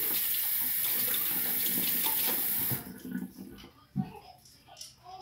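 Water running from a tap into a sink, shut off abruptly about halfway through, then a single knock a second or so later.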